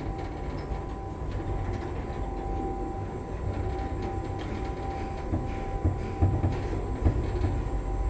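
Schindler Smart machine-room-less traction lift travelling up two floors, heard from inside the car: a steady low rumble with a faint steady whine over it. A few light knocks come in the last couple of seconds as the ride gets a little louder.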